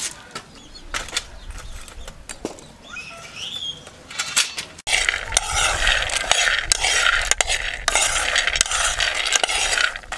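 A few scattered clicks, then from about five seconds in a dense, continuous rattling and scraping as raw groundnuts are stirred in a dry metal pan while being fried before pounding.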